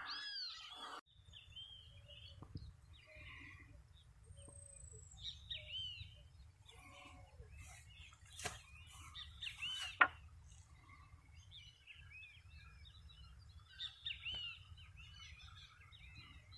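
Several wild birds chirping and calling with short, quick notes, over a low steady rumble. Two sharp clicks come about halfway through.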